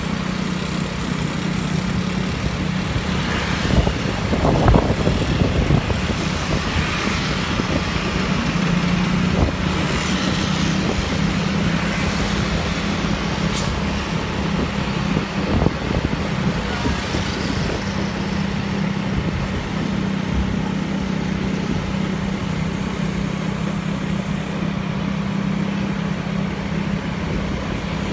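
Road-traffic sound heard from a moving vehicle in city traffic: a steady engine hum under a constant rush of road and wind noise, with a louder stretch about four to five seconds in.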